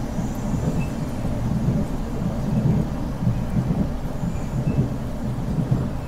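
Steady low rumble of a moving passenger vehicle, heard from inside the cabin.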